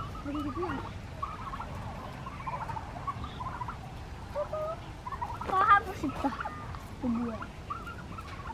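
Domestic turkeys calling at the fence: a run of short, wavering calls, the loudest a little past halfway.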